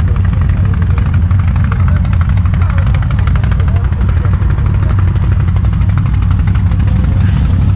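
ATV engines running steadily at low revs, an even drone with no revving.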